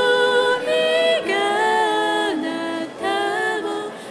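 Background music: singing of a slow melody in long held notes that step up and down in pitch.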